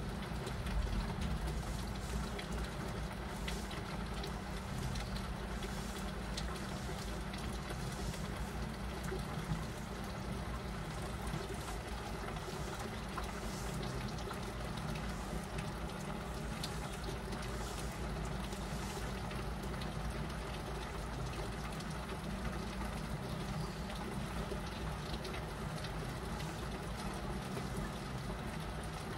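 Heavy rain falling steadily, drops striking the window glass as short ticks over a constant hiss, with a low rumble underneath.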